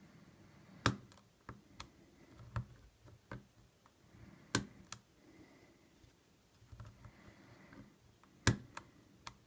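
Hook pick and tension wrench working the pin stack inside a 28 mm Wilson Bohannon padlock: scattered light clicks and faint scraping, the sharpest clicks about a second in, halfway through and near the end.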